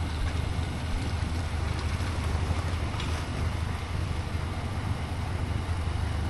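Steady low rumble with wind buffeting the microphone, as from a fishing boat under way on the river.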